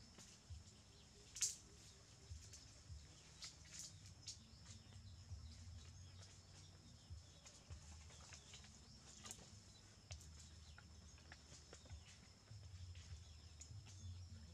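Quiet outdoor ambience: scattered soft clicks and ticks, one sharper click about a second and a half in, over a faint steady high whine.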